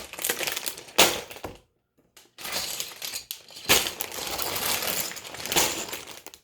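Plastic bags of Mega Construx building pieces crinkling, with the plastic bricks rattling inside, in several handled bursts and a short pause about two seconds in.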